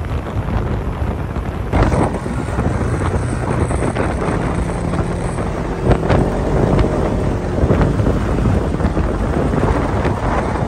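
Wind buffeting the microphone over a dune buggy running across sand, with a couple of sharp knocks about two and six seconds in.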